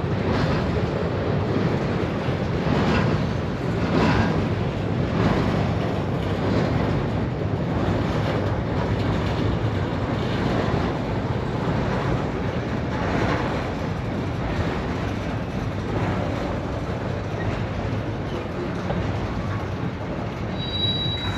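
Freight train rolling through a rail yard: a steady rumble of wheels on rail with a clack every second or two, and a brief high squeal near the end.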